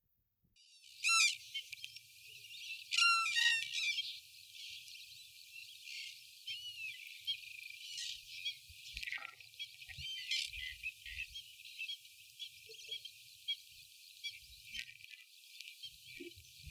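Sarus cranes calling: one loud call about a second in and a louder run of calls around three seconds in. Fainter calls and many small bird chirps follow.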